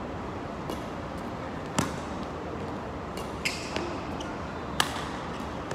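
Badminton rally: rackets hitting a shuttlecock back and forth. There are several sharp smacks, the loudest about two seconds and five seconds in, with lighter ones between, over a steady hall noise.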